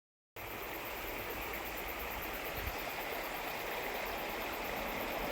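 Steady rushing of flowing water, with a faint low knock about halfway through.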